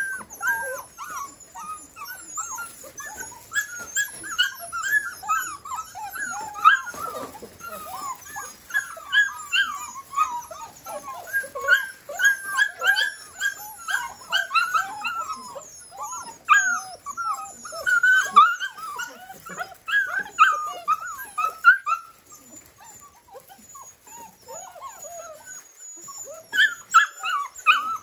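A litter of seven-week-old Australian Labradoodle puppies whining and yipping together, many short high calls overlapping. The calls ease off for a few seconds about three-quarters through, then pick up again near the end.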